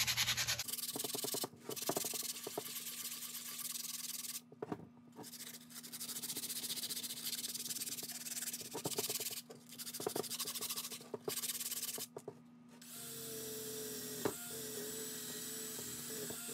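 Coarse 60-grit sandpaper scrubbed by hand over a rusty steel hitch ball mount, in uneven strokes with brief pauses. About thirteen seconds in the sanding stops, and a cordless drill with a wire wheel starts running on the steel with a steady whine.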